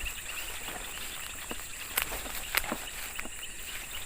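Insects chirring steadily in a rapid pulsing chorus over a constant high hiss, with a few sharp clicks about halfway through.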